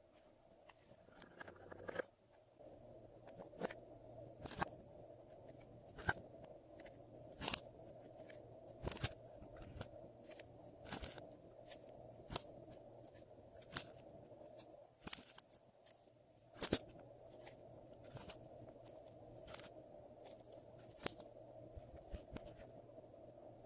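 Glossy slime being mixed and pressed by hand, giving sharp sticky clicks and pops every second or two.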